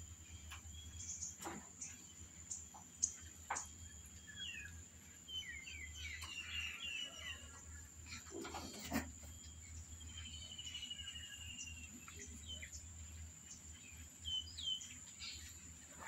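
Small birds chirping at intervals, with a rapid trill about ten seconds in, over a steady low hum; a few soft clicks and taps in between.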